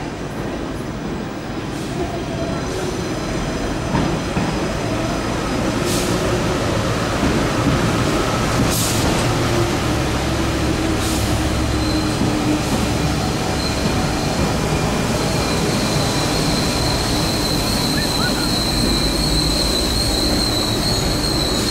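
RER B electric commuter train pulling into the platform and braking, with a rumble that grows as it draws alongside and a few clicks of the wheels over rail joints. A high, steady brake and wheel squeal starts past the middle and grows louder as the train slows to a stop.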